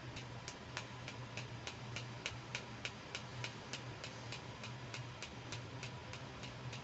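Steady, evenly spaced clicking, about three clicks a second, over a low steady hum.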